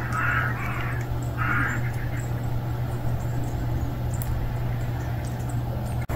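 A bird calling a few times in short bursts in the first two seconds, over a steady low hum.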